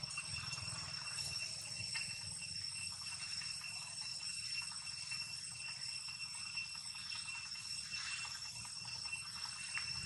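Steady high-pitched insect chorus: one unbroken tone with fainter overtones above it, over a low steady rumble.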